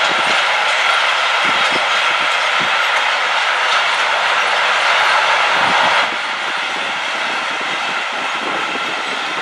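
A long freight train of covered sliding-wall wagons rolling past: a steady rushing rumble of wheels on rail with irregular low knocks, dropping a little about six seconds in.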